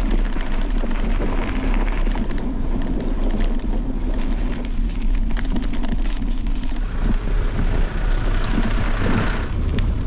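Wind buffeting the microphone of a camera carried on a moving bicycle, a steady heavy rumble, with frequent knocks and rattles from riding over a rough dirt track.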